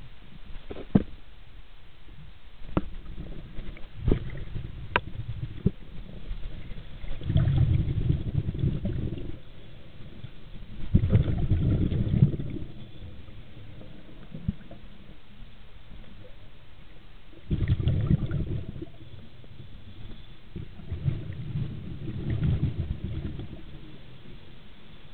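Scuba diver's breathing heard underwater: low bubbling bursts of exhaled air from the regulator every few seconds, each lasting a second or two. A few sharp clicks come before the first exhalation.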